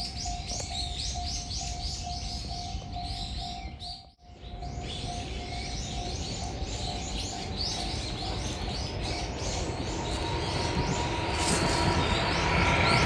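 A flock of small birds chirping busily, with many overlapping chirps. The sound drops out briefly about four seconds in. Over the last few seconds a rushing background noise grows louder.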